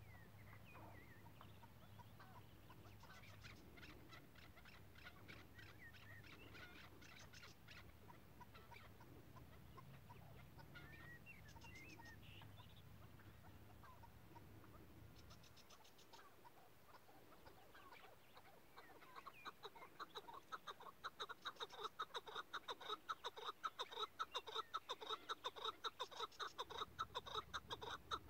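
Chukar partridge calling: from about two-thirds of the way in, a fast, even run of clucking notes, several a second, growing louder. Before that, only faint short bursts of quick chattering.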